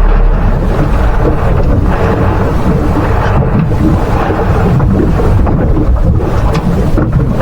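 Wind buffeting the microphone on a boat at sea: a loud, steady low rumble.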